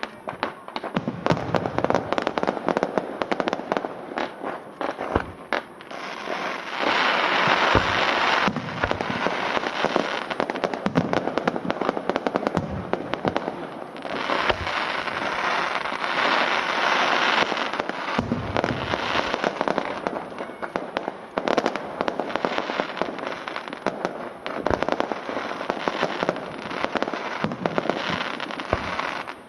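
Fireworks going off in a dense, continuous barrage of crackling and popping bursts, with thicker, louder stretches about six seconds in and again about fourteen seconds in, and a deeper boom near eighteen seconds.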